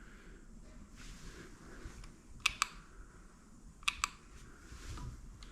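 Small switches clicking, two quick clicks at a time, twice, as the motorcycle's newly wired electrics are tried out.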